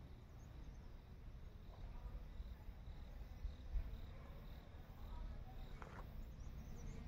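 Quiet deodar forest ambience: a low rumble on the microphone under faint high chirping that repeats a couple of times a second, with one brief soft click about six seconds in.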